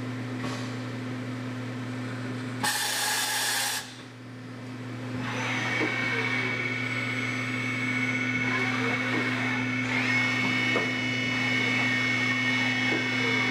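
Kitamura Mycenter-1 vertical machining center running, with a steady low electrical hum underneath. A loud hiss lasts about a second near three seconds in, then the spindle spins up into a steady high whine that steps up in pitch about ten seconds in.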